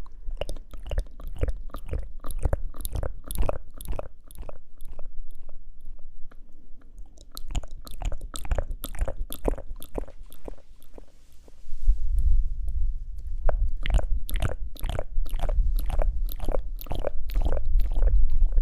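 Close-miked ASMR mouth sounds: rapid wet clicks and smacks, several a second. A soft breathy hiss comes about eleven seconds in, and from about twelve seconds a low rumble runs under the clicks.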